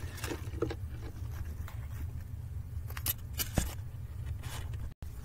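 Light scattered rustles and taps of crumpled aluminium foil being pushed and set down on carpet, with one sharper knock about three and a half seconds in, over a steady low hum. The sound drops out for an instant near the end.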